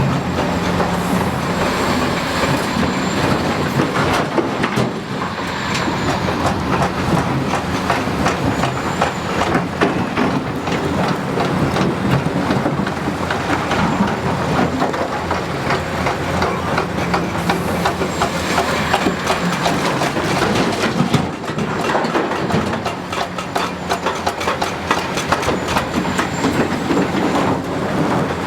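Hitachi 330 excavator working rock: its diesel engine runs steadily under continuous clattering and clanking of stone and steel.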